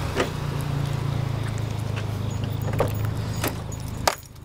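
A car engine idling with a steady low hum, with a few light clicks of keys and a car door. About four seconds in a car door shuts with a sharp thump, and the hum drops to a muffled level.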